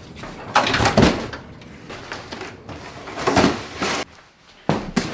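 A house's front door being shut as a large cardboard box is carried in, with a few knocks and scuffs from the door and the box.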